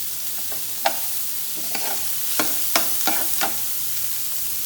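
Chopped onions and capsicum sizzling steadily in hot oil in a pan, with a spoon knocking and scraping against the pan about six times as the mix is stirred and spices go in.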